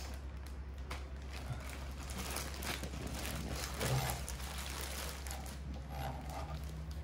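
Scattered light clicks and rustles of raw chicken being handled and trimmed by hand, over a steady low hum, with a slightly louder knock about four seconds in.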